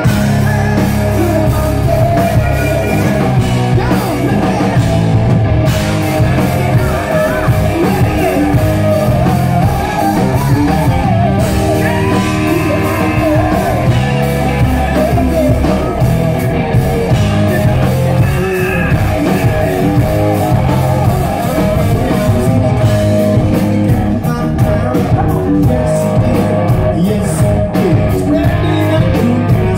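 Live rock band playing loudly, with electric guitars, bass guitar, drums and a lead vocalist singing, heard from within the crowd.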